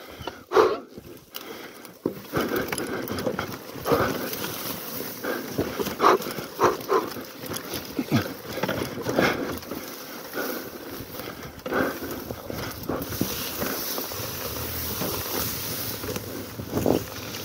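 Dirt bike rolling slowly down a steep rocky, grassy slope: irregular knocks and clunks as the tyres and suspension go over rocks, with grass brushing against the bike.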